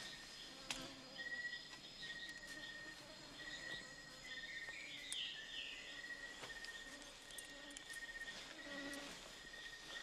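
Jungle insects buzzing in repeated high trills at one steady pitch, each lasting under a second, with a short run of gliding chirps about four to five seconds in and a few faint clicks.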